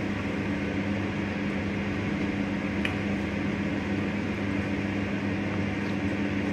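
Steady low machine hum, like a kitchen appliance or fan running, with one faint click about three seconds in.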